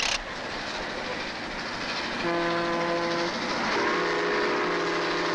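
O-gauge electric toy train running on the layout's track with a steady rumble, after a short sharp click at the start. From about two seconds in, a train horn sounds in two long blasts with a short break between them.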